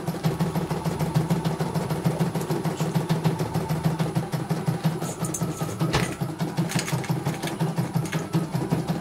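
CNY E900 computerised embroidery machine stitching, a steady, fast, even needle rhythm, with a single sharp click about six seconds in.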